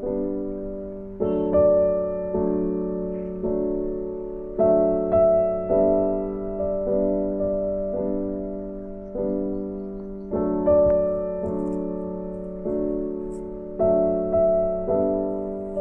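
Background music: slow, gentle piano or electric-piano chords, each struck and left to ring and fade, about one a second.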